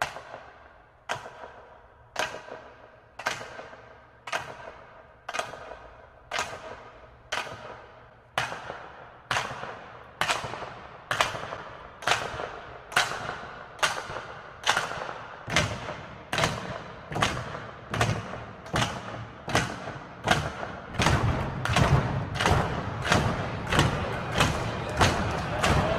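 Sharp, ringing knocks struck about once a second, steadily getting louder and a little faster. A low rumble swells in beneath them from about halfway. This is a rhythmic, building soundtrack.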